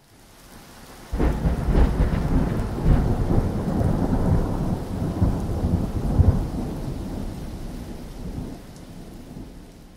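Thunder: a loud, low rumble breaks in suddenly about a second in and rolls on, fading slowly over the following seconds.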